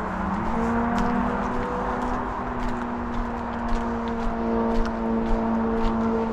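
Steady motor hum of vehicles on a nearby road, holding one pitch after a slight rise about half a second in, under footsteps on a paved path at about two steps a second.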